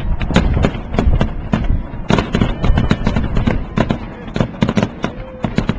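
New Year's fireworks going off thick and fast: many sharp bangs and crackles a second over a continuous low rumble of more distant blasts.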